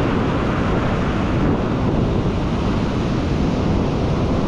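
Ocean surf breaking and washing over rocks in a steady rush, with wind buffeting the microphone.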